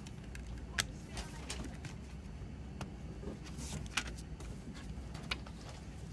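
Plastic CD jewel case being handled: several sharp clicks as the disc is pressed into the tray and the case is closed, the loudest about four seconds in, with soft rustling between them over a steady low hum.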